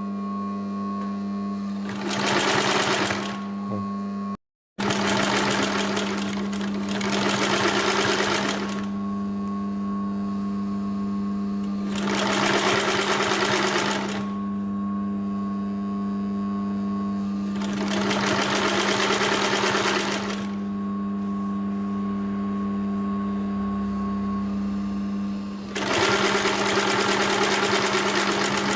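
Hightex 266-1 extra-heavy-duty industrial zigzag sewing machine stitching thick Kevlar belting in five separate runs of a few seconds each. A steady hum continues between the runs.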